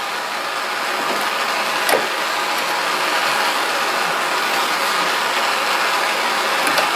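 Handheld gas torch flame hissing steadily, with a few light metal clicks, about two seconds in and near the end, as the heated threaded stud is turned out of its knob.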